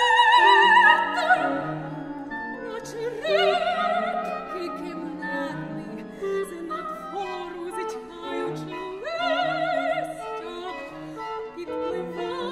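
Soprano singing with a wide vibrato over a chamber ensemble with violin, in a contemporary classical cantata. Her loudest phrase is a high held note at the start, with further sung phrases over sustained notes from the instruments.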